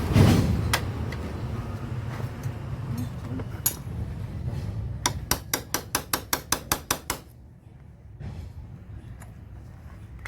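Metal tools striking or clicking against metal parts: scattered knocks over a steady low rumble, then a quick run of about a dozen sharp metallic taps at roughly five a second, after which the rumble stops.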